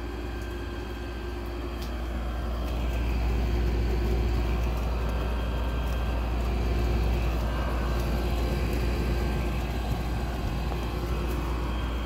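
Window air conditioner running: a steady low hum of compressor and fan with a rushing air noise, swelling somewhat louder a couple of seconds in and then holding steady.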